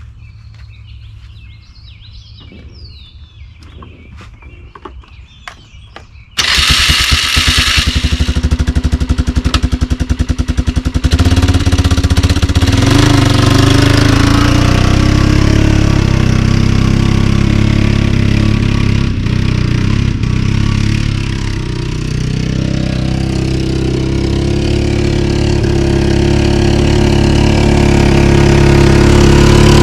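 Polaris Sportsman 400 ATV's single-cylinder four-stroke engine cranking on the starter for several seconds, then catching and running steadily. Its note rises and gets louder as the quad pulls away near the end. Birds chirp before the start.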